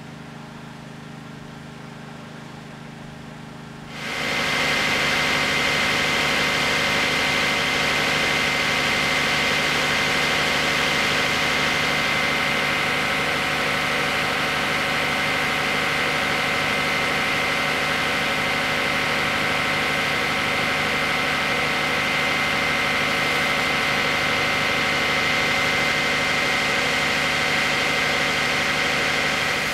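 An engine running steadily. About four seconds in, a much louder steady rush with a high whine cuts in over it and holds, then stops abruptly near the end.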